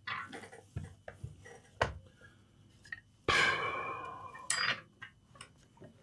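Light clicks and taps of small tools and parts being handled on a workbench, then a sudden rush of noise about three seconds in that fades over about a second, ending in a sharp click.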